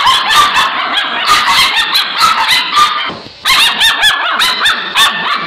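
Several five-week-old Alaskan Malamute puppies squabbling in rapid, overlapping high-pitched yaps, barks and whines, with a brief lull a little over three seconds in.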